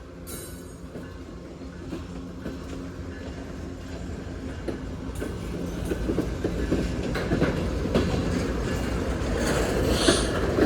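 Union Pacific manifest freight train drawing near and passing, growing steadily louder. About halfway through, the wheels begin clacking over the rail joints.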